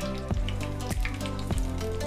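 Background music over whole spices sizzling in hot ghee in a clay pot, stirred with a spoon.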